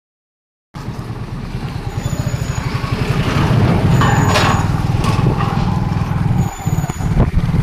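Motor vehicle on the move: a steady low engine drone with a fast pulse, cutting in abruptly just under a second in and growing louder about three seconds in.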